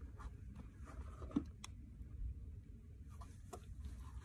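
Faint scattered clicks and small taps over a steady low rumble, with one sharper click about a second and a half in.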